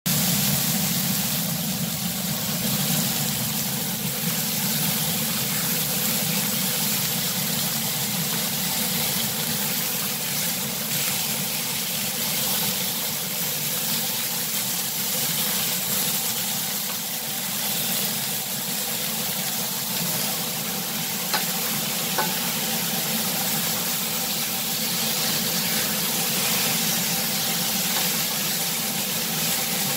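Beef tenderloin steaks sizzling in frying pans over a steady low hum. Metal tongs turn them, with a couple of sharp clicks about two-thirds of the way through.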